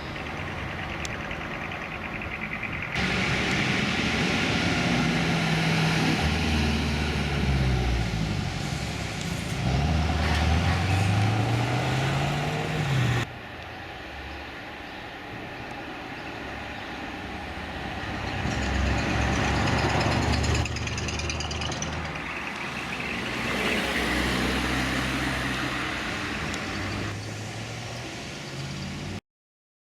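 Engine of a Mercedes-AMG C63 test car making a strange sound, its pitch rising and falling repeatedly as it revs and moves. The sound changes abruptly twice and cuts off suddenly near the end.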